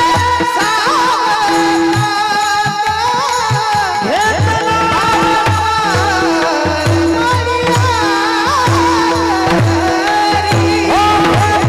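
A high male voice sings an ornamented devotional melody over a held drone and a steady drum beat of about two strokes a second.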